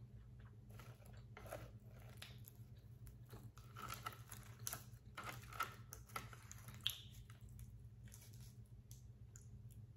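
Close-miked eating sounds: chewing, with crisp clicks and crackles from dried seaweed sheets being pulled from a plastic tray and handled with chopsticks, busiest in the middle.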